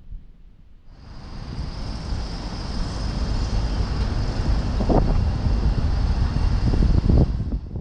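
Road traffic: a vehicle passing on the street, a low rumble and tyre noise that swells over several seconds and falls away near the end.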